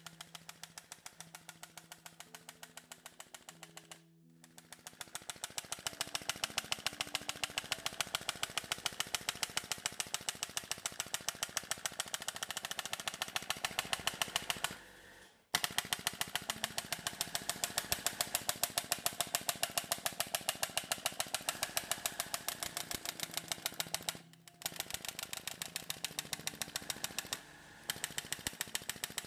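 Mesogun mesotherapy injector gun firing in a fast, even run of sharp clicks as it repeatedly needles platelet-rich plasma into the skin. The clicking stops briefly a few times.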